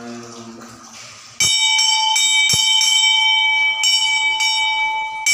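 Temple bell rung repeatedly, starting about a second and a half in: sharp metallic strikes every half second or so, each ringing on into the next.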